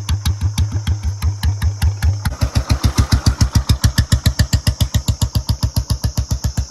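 Royal Enfield Bullet single-cylinder motorcycle engine idling through an aftermarket silencer, an even thumping exhaust beat of about five a second. About two seconds in the beat turns louder and a little quicker.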